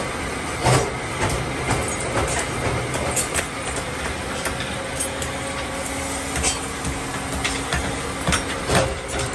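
Forged iron wiring hooks clinking together as they are handled and packed into a cardboard box: irregular sharp metallic clicks over a steady background noise.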